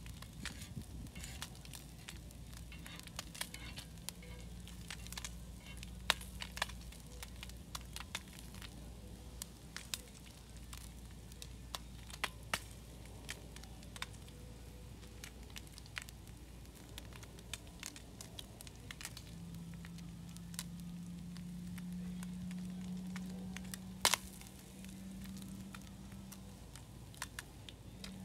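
Meat frying on a hot griddle, fat spitting in scattered sharp crackles and pops, one louder pop near the end. A low steady hum comes in more strongly about two-thirds of the way through.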